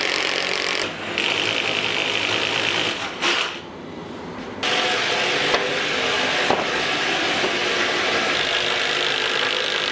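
Cordless drill spinning a spade bit through an ash butcher block countertop, boring starter holes at the corners of the sink cutout. The drilling runs steadily, drops off briefly about three seconds in, then resumes.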